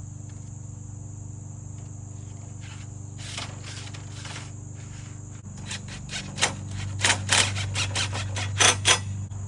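Crickets chirring steadily over a low hum. From about five and a half seconds in comes a quick, irregular run of sharp clicks and knocks, from hands-on work fitting the bottom rail of a composite deck railing.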